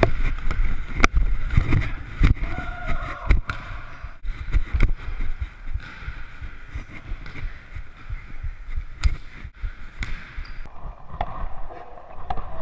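Pickup basketball on a hardwood gym floor, heard from a camera on a moving player: a basketball being dribbled, with sharp knocks of ball and footfalls, a few short sneaker squeaks, and low thumping and rustle from the player's running body.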